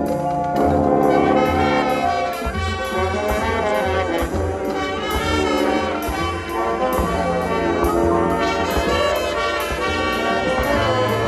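Marching band playing: brass over a steady percussion beat.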